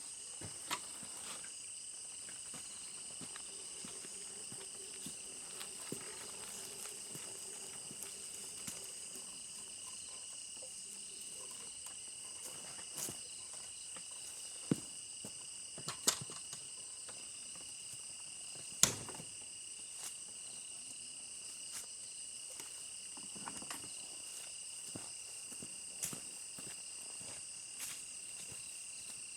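Steady, high-pitched chorus of forest insects, with a few sharp clicks or knocks scattered through it.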